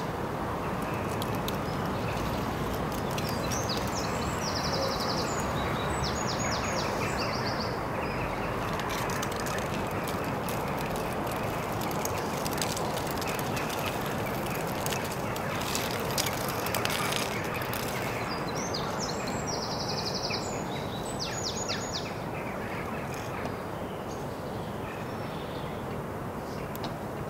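A songbird sings the same short phrase ending in a trill twice, about four seconds in and again about twenty seconds in, over a steady outdoor background noise. A scatter of light clicks runs through the middle.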